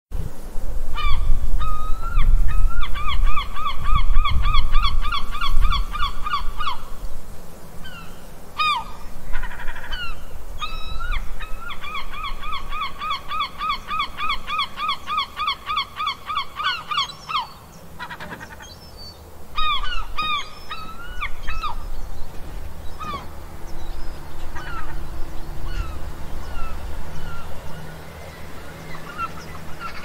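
Gulls calling: two long runs of rapid, repeated laughing calls at about four notes a second, with scattered single down-slurred calls between and after them. A low rumble sits under the first few seconds.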